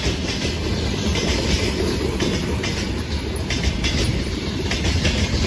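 Freight train wagons rolling past: a steady rumble of wheels on rail, with repeated sharp clacks as the wheels pass over rail joints.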